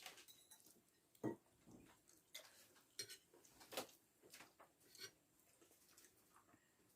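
Faint, scattered clicks and taps of eating goat satay: chewing and skewers or utensils touching a plate, about half a dozen separate knocks in the first five seconds, then quieter.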